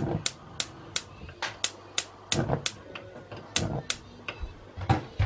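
Gas hob spark igniter clicking repeatedly while a burner knob is held, sharp clicks about three a second at uneven spacing, a few with a soft low thump under them.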